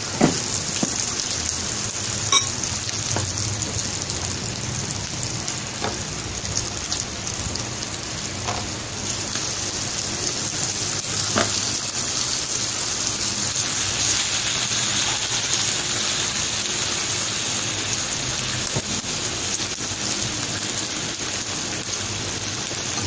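Pork sizzling on an electric grill plate: a steady hiss, with a few sharp clicks of metal tongs against the grill near the start.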